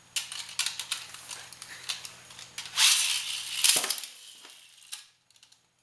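Hard plastic clicking and clattering as a Beyblade stadium insert is handled, then a loud ratcheting rasp of a Beyblade ripcord launcher being pulled about three seconds in, after which the sound fades away.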